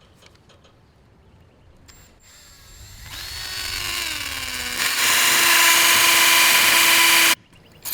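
Hammer drill boring into hard rock: it starts up about two seconds in, its pitch sliding down as the bit bites, then runs loud and steady before cutting off suddenly near the end. It is working all the way hard and cutting very slowly through the stone.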